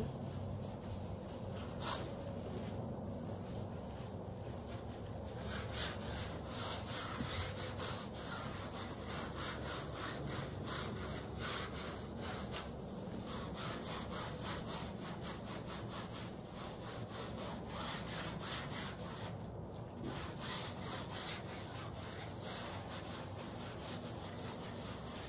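Gloved fingers rubbing and smearing wet acrylic paint across a large stretched canvas in quick, repeated strokes, a continuous scratchy rubbing.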